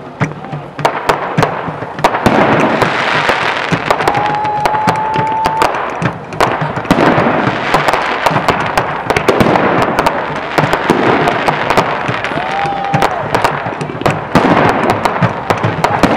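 Fireworks display: gold crackle shells bursting in quick succession, a dense crackling and popping with sharp bangs throughout, building up about two seconds in.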